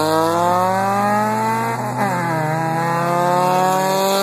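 Honda Civic EG coupe engine under hard acceleration, heard from inside the cabin: the revs climb steadily, drop with an upshift about two seconds in, then climb again.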